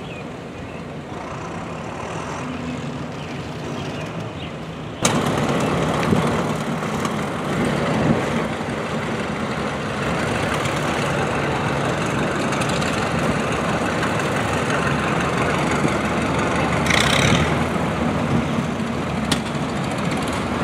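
Engines of several vintage farm tractors idling and running steadily, louder and fuller from about five seconds in.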